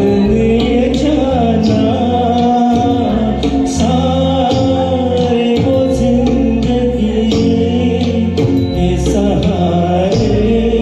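Instrumental interlude of a Hindi ghazal backing track: a sustained melody line over steady bass notes, with light percussion strikes.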